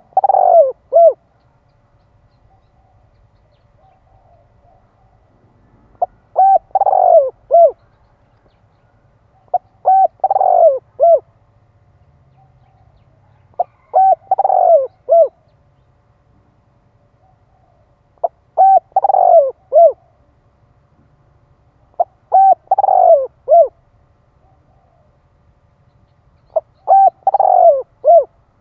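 Spotted dove (cu gáy) cooing a male's decoy song meant to provoke wild males. It repeats a phrase about every four seconds, six whole phrases in all, each a couple of short coos and then a longer falling coo.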